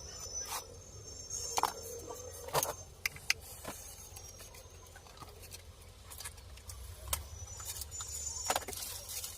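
Scattered sharp clicks and light knocks, about eight of them at irregular intervals, over a low steady hum.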